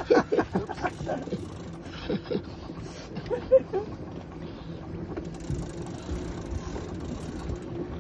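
Boat engine running steadily under wind noise. Near the start, a big-game fishing reel clicks rapidly as it is cranked against a heavy fish on the line.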